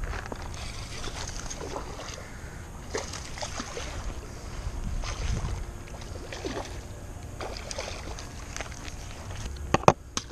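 Low, steady rumble of wind and handling noise on a body-worn camera's microphone, with faint scattered ticks and rustles, and two sharp clicks just before the end.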